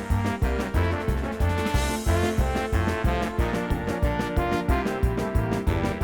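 Background music: an upbeat, jazzy brass-led tune over a steady, evenly pulsing bass beat.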